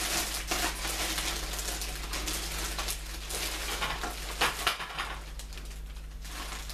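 Clear plastic packaging bag crinkling and rustling as the wrapped metal frame of a bike rack is handled and lifted, with two sharp knocks about four and a half seconds in.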